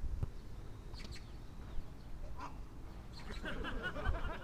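Futsal players shouting and calling to each other on the pitch: a few short calls early, then several voices overlapping from about three seconds in, over a low steady rumble.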